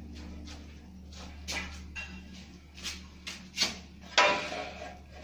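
Several irregular knocks and clatters, the loudest about four seconds in with a short ringing tail, over a steady low hum in a bare tiled room.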